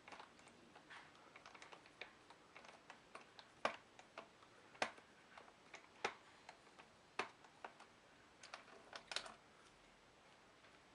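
Faint, irregular small clicks and taps of hand work on a laptop: a screwdriver and small screws against the plastic case.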